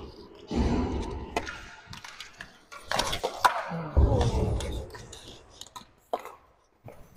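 Roller hockey play at the goal mouth: sharp clacks and knocks of sticks and puck, with heavy low thuds and rattling as the camera mount is jolted during a scramble in front of the net.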